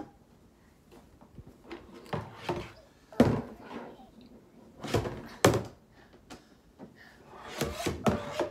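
Hollow plastic knocks and thumps as the parts of a plastic kids' water table are handled and fitted together: a loud knock about three seconds in, two more around five seconds in, and a cluster near the end.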